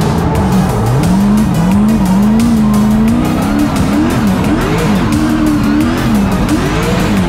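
Turbocharged V8 drift car heard from inside the cabin, the engine revving up and down over and over as the car drifts, with the tyres squealing. The engine holds an even pitch for a second or so near the middle, then swings up and down again.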